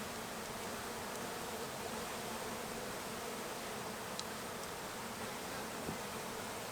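Steady, dense buzzing of a large honey bee colony opened up during a cutout, with a couple of faint clicks partway through.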